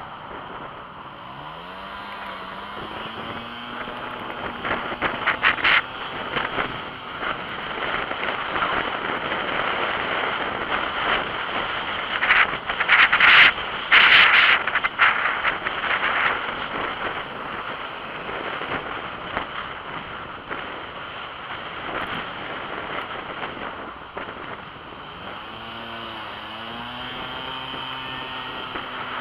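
Steady rush of wind and road noise on a cyclist's camera microphone, with a loud stretch of buffeting about halfway through. Near the start and again near the end, a small engine ahead rises in pitch as it accelerates.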